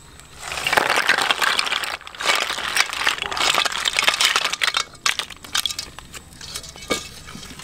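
Boiled snails tipped from a pot into a woven bamboo basket: a dense clatter of shells knocking together in two pours, with a short break between, then scattered clicks as they settle.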